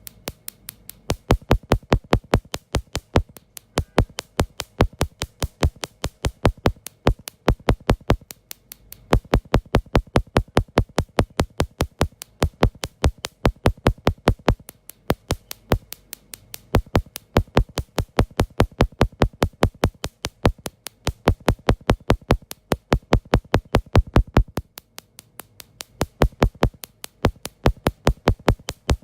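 Electronic background music with a fast, sharp drum-machine beat, played in phrases with short breaks.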